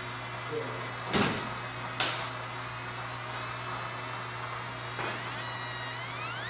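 MOPA fiber laser marking machine at work: a steady low hum with thin high-pitched tones that glide up and down as the beam is steered over the metal. A few sharp clicks come about a second in, at two seconds and near five seconds.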